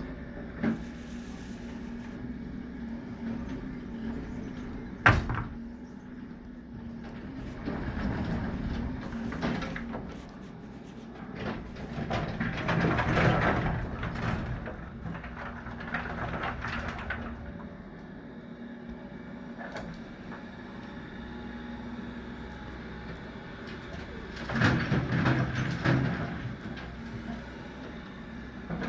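Demolition machinery working on an old concrete porch: an engine hums steadily throughout. A sharp knock comes about five seconds in, and several louder stretches of scraping and breaking follow, the loudest about halfway through and again near the end.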